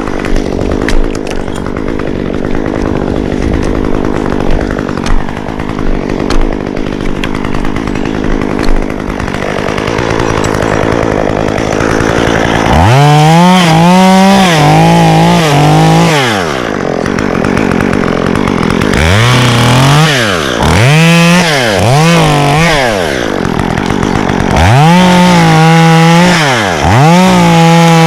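Stihl two-stroke chainsaw idling roughly, then, about halfway in, revved to full speed five times in quick succession. Each rev is held for one to three seconds, its pitch wavering as the chain is loaded in a cut, then drops back.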